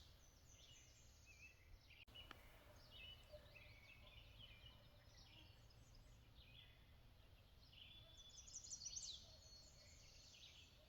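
Faint background birdsong: several small birds chirping and trilling, busiest about eight to nine seconds in.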